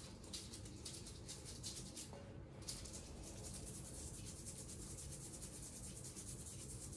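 Brush bristles scrubbing dentures in quick, even strokes, a faint scratchy rubbing with a short break about two seconds in.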